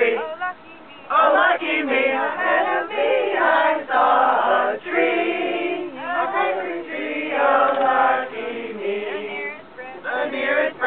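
A group of men and women singing together unaccompanied, a choir of many voices singing held notes with short breaks between phrases.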